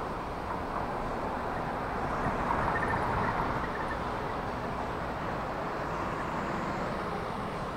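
Airbus A340-600's four Rolls-Royce Trent 500 turbofans running at low taxi power as the airliner rolls along the taxiway: a steady rushing hum that swells slightly a little over two seconds in.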